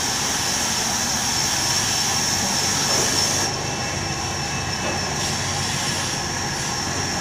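Large sawmill band saw running and ripping a timber plank lengthwise: a steady high-pitched whine over continuous mechanical noise. The highest hiss drops away about halfway through.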